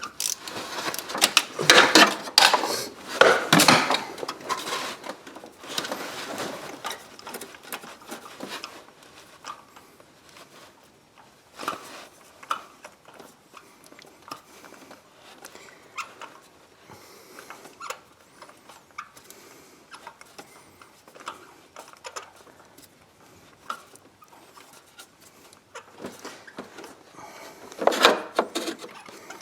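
Hand tools clicking and clattering against metal in an engine bay during spark plug work: a busy stretch of dense clicking for the first several seconds, then scattered light ticks, and another burst of clatter near the end.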